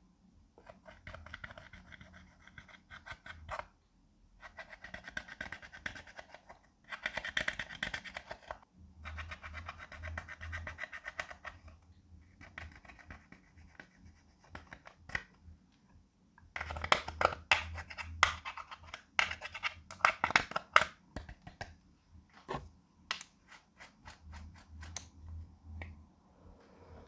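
Clear slime being worked by hand, with dense sticky crackling in bursts of a second or two. From about two-thirds of the way in come sharper, louder pops, then scattered single pops.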